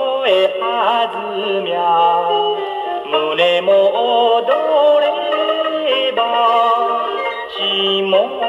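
Music from a 1958 78 rpm record playing on a Columbia G-241 portable wind-up gramophone through its acoustic soundbox. A melody line moves continuously over steady accompaniment.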